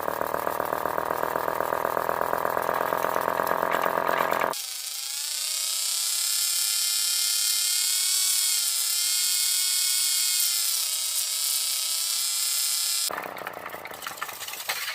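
Small battery-powered electric motor spinning fast on a 9-volt battery with a buzzing whine. A little over four seconds in, the sound switches abruptly to a thinner, higher whine for about eight seconds, then changes back to the buzz near the end.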